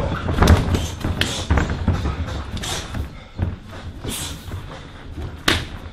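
Kickboxing strikes: gloved punches and kicks landing as sharp slaps and thuds, several in an irregular flurry, with a sharp one about five and a half seconds in.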